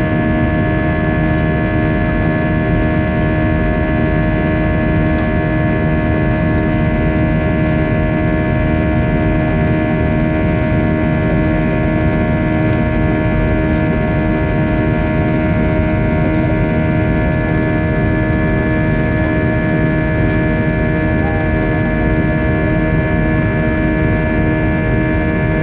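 Steady jet cabin noise inside an Airbus A320-232 in flight: a constant low rumble with several steady whining tones on top, unchanged throughout.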